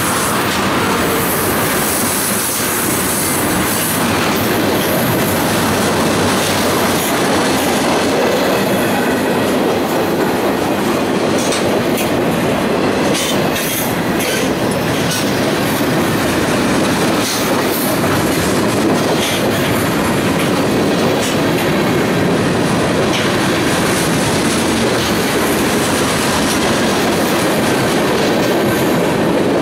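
Freight train of tank cars and steel coil cars rolling past at close range: a steady, loud rumble of steel wheels on rail, with scattered clicks and clacks as the wheel sets pass over the rail.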